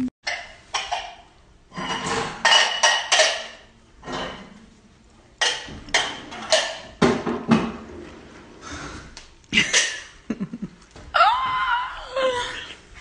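Dishes and cutlery clattering and clinking as they are loaded into a dishwasher, a string of separate knocks and clinks. A short voice is heard near the end.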